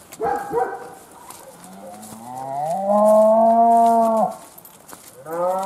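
A cow lowing: a long moo that rises at first and then holds for a couple of seconds, followed by a second long moo near the end.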